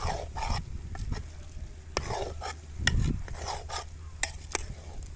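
Steel spoon stirring chicken and brinjal pieces in a metal pot, scraping the pot and clinking sharply against it several times.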